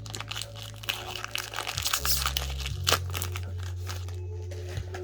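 Foil booster-pack wrapper crinkling and crackling in the hands as a Pokémon card pack is handled and opened, busiest for the first three seconds with one sharp crack near the end of that, then quieter rustling.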